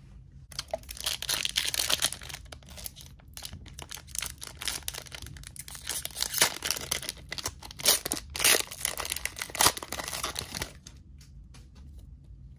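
Trading-card booster pack wrapper crinkling as it is handled and torn open by hand, an irregular crackle with several louder rips in the second half.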